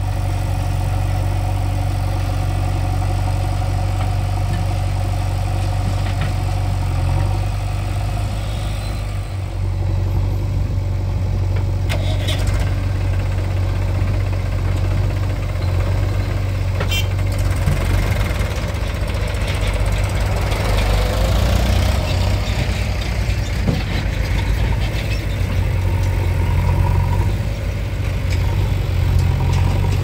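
Diesel engines of a JCB 3DX backhoe loader and a Mahindra tractor running close together, a steady low drone. The engine note shifts in the second half as the loader works, and there are a few sharp knocks as soil and bucket land in the tractor trolley.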